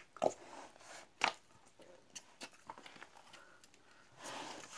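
Hands kneading and pressing firm bread dough in a plastic basin: a few sharp slaps and knocks in the first second and a half, then softer pressing and rubbing, with a short rustle near the end.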